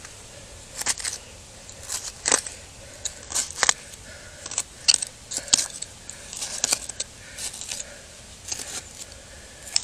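A small pointed hand tool scraping and picking at hard-packed dirt and gravel around a buried glass bottle, in short, irregular scrapes about one or two a second.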